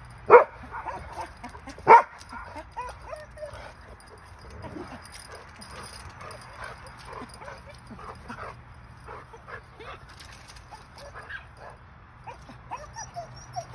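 Dogs barking twice, sharp and loud, in the first two seconds, then whining and yipping over and over: the excited, frustrated noise of dogs held back by a fence from rabbits just beyond it.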